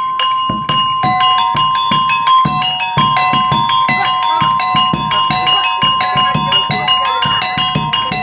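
Topeng monyet street-show accompaniment: small metal pot-gongs struck with sticks in a quick repeating pattern, their ringing tones overlapping, over a drum beat.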